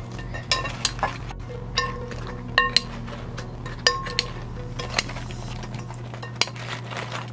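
Metal spoon clinking and scraping against a glass mixing bowl as fried chicken wings are tossed in sauce: irregular knocks, each ringing briefly, the loudest pair about two and a half seconds in. A steady low hum runs underneath.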